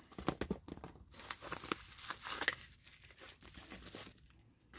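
Bubble wrap and a torn plastic mailer envelope being handled and crinkled by hand: a run of crackles and rustles, busiest in the first couple of seconds and thinning out after.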